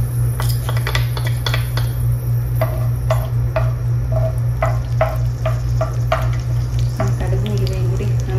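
Wooden spoon stirring mustard and fenugreek seeds in hot coconut oil in a clay pot: a run of clicks and scrapes of the spoon against the pot, about two or three a second, over the light sizzle of the seeds in the oil and a steady low hum.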